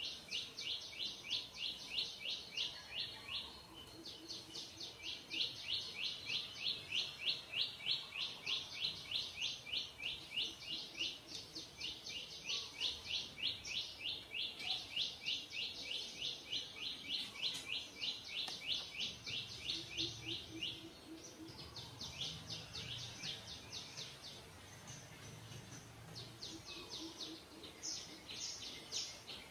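Fast, high-pitched chirping repeated many times a second in runs of a few seconds with short breaks, from a creature that is not in view.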